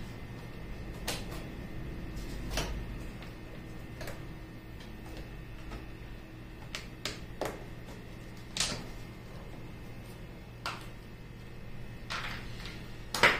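Irregular clicks and light knocks of hand work on car trim and tail-light fittings, about ten in all with the sharpest near the end, over a steady low hum.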